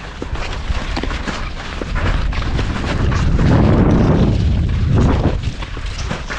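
Wind buffeting an action camera's microphone: a heavy low rumble that swells in the middle and eases off. Light clicks from ski poles and skis on snow come through it.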